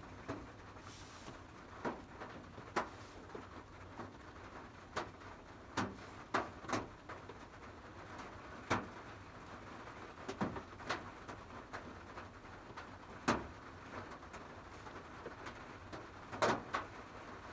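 Rain falling straight onto a Honda N-VAN's roof with no tarp overhead, heard from inside the van: a steady soft patter with sharp single drop strikes at irregular intervals, roughly one every second or so.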